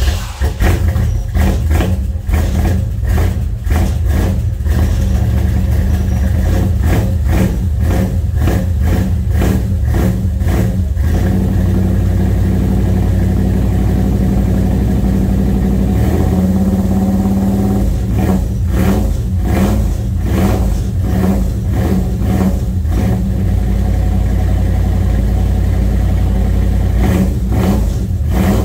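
1970 Chevelle's engine running just after a cold start, inside a closed garage. It runs loud and uneven for the first ten seconds or so, then settles into a steadier run, with a brief change in tone around the middle.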